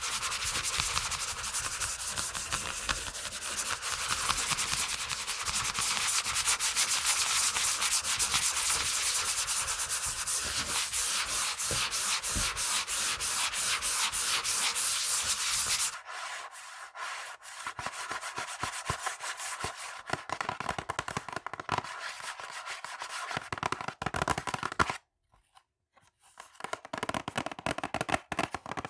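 Fingernails scratching fast and hard on a textured surface, then switching about halfway through to lighter scratching and tapping on a different item that gives a faint ringing tone, with a short silent pause near the end.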